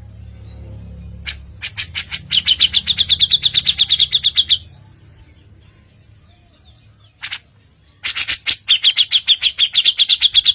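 Songbird of a bird-song training mix (Javan cucak jenggot and cililin) giving two bursts of fast, evenly spaced, high piercing notes, about ten a second, each opened by a few sharp clicks. A single short note comes between the bursts.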